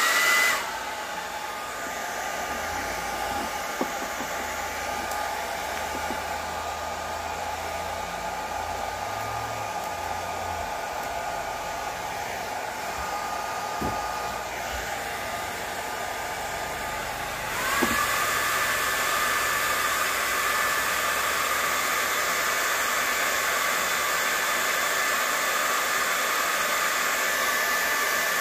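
Handheld hair dryer switched on and blowing steadily, a rushing airflow with a motor whine. About 17 seconds in it gets louder and its whine rises in pitch.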